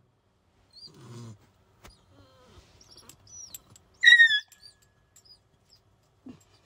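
Dog whining in short high-pitched squeaks, the loudest and longest about four seconds in.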